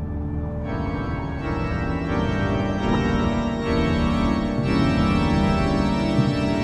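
Black metal music with sustained organ-like keyboard chords over a dense low band sound; it grows fuller about a second in.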